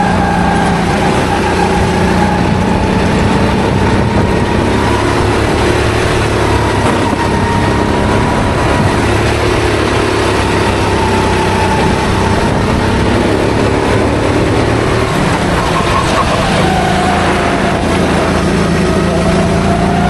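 Onboard sound of a rental racing kart's engine running under throttle through corners, its pitch rising and falling with engine speed, dropping about three quarters of the way through, then climbing again. Steady wind and road noise runs underneath.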